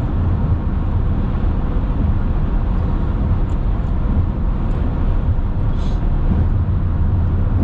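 Steady low rumble of a car driving at highway speed, heard from inside the cabin: tyre and road noise with engine hum.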